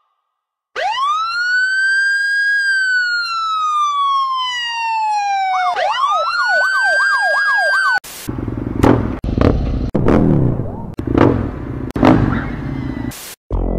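A siren sounds one slow wail, rising for about two seconds and falling for about three, then switches to a fast up-and-down yelp for about two seconds. It cuts off abruptly and gives way to a louder, noisier stretch with irregular thumps.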